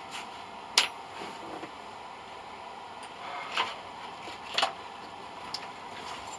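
A few sharp clicks and knocks of hand tools being handled on a workbench, the loudest about a second in and two more in the second half, over a faint steady hum.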